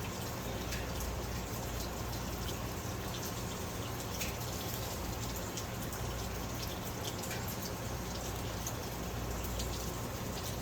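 Faint wet clicks and squishes of hands working sticky filter oil into a foam air filter, over a steady background hiss and hum.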